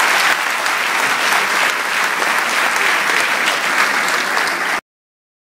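A large audience applauding loudly: dense clapping that cuts off abruptly near the end.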